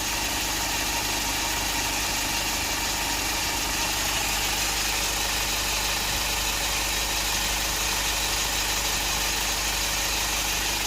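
Hyundai Porter 1-ton cargo truck's engine idling steadily.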